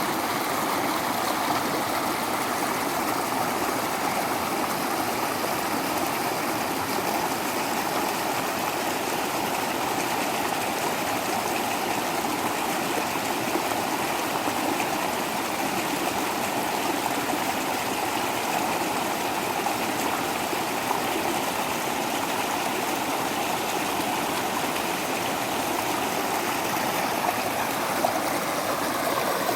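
Waterfall rushing: a steady, even splash of falling water that does not let up.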